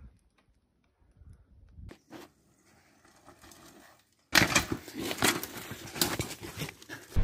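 A mountain-bike crash on a leafy forest trail: after a few near-quiet seconds with faint knocks, a sudden burst of crashing, clattering and rustling through dry leaves and undergrowth, with many sharp knocks, starting about four seconds in.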